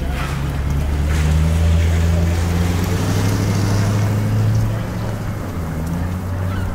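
Low engine drone that builds over the first second or so, holds, and drops back a little before five seconds in.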